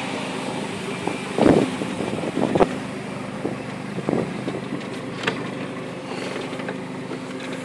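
1993 Volvo 940 Turbo's B230FT turbocharged four-cylinder idling steadily, a little loud through an exhaust with holes in it and a muffler whose top half is missing. A few short knocks or thumps come over it, about one and a half, two and a half and four seconds in.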